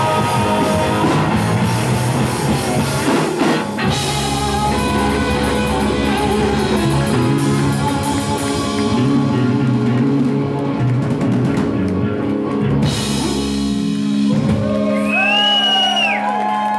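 Live rock band playing loud: distorted electric guitars, bass guitar and drum kit, heard in a club hall. Near the end the low end drops away and held notes bend up and down in pitch.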